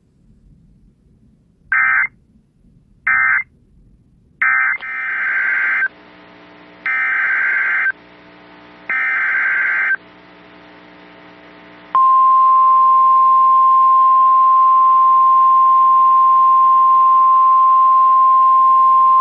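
Emergency Alert System data tones: three short buzzy bursts end the previous message, then three longer bursts about a second apart open the next alert. About twelve seconds in, a loud steady single-pitch National Weather Service attention tone begins and holds.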